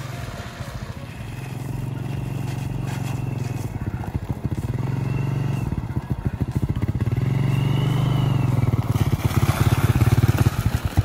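Honda ATV's single-cylinder engine running as the four-wheeler drives across the lake ice toward the listener, growing louder as it approaches. The engine note dips and rises a little along the way.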